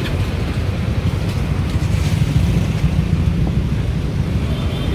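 Steady low rumble of street traffic mixed with wind buffeting the microphone.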